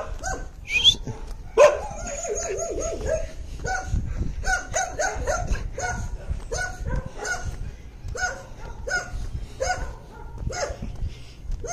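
Dogs barking repeatedly, with a few drawn-out whining calls in the first few seconds, then about two barks a second. A steady low rumble runs underneath.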